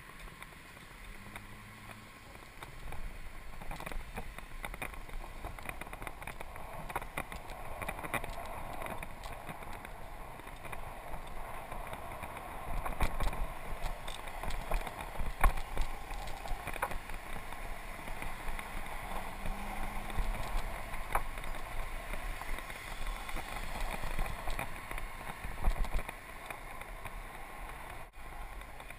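A Mongoose bicycle being ridden over pavement, heard through a bike-mounted GoPro: a steady rumble of tyres and wind on the microphone, with frequent clicks and knocks as the bike and camera mount rattle over bumps and cracks.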